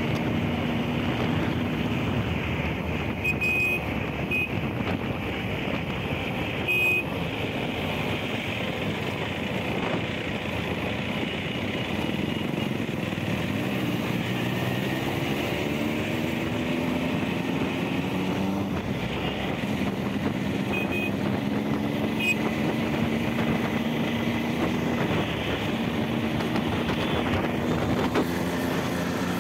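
Benelli TNT 899's three-cylinder engine running under way, its pitch climbing and dropping back several times as the bike speeds up and slows. A few short high beeps sound briefly in the traffic.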